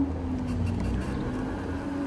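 Riding an electric motorcycle: a low hum that falls slowly in pitch, over a steady rumble of wind and road noise.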